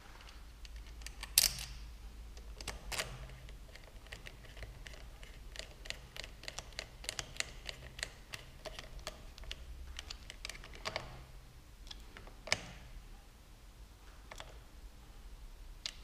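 Hand screwdriver with a socket bit turning a screw in a motorcycle handlebar grip housing: small sharp clicks, with a quick run of about four a second in the middle and a few louder single clicks.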